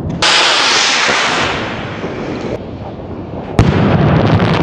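Spanish Katiuska firework rocket: a sudden hissing whoosh as it climbs, fading away over about two seconds, then the sharp loud bang of its star burst about three and a half seconds in, followed by an echoing rumble.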